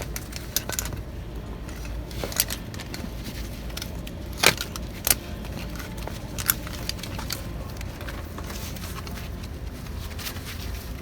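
Scattered metallic clicks and clinks from a pair of magnet-fishing magnets stuck together being handled, the sharpest two about four and a half and five seconds in, over a steady low rumble.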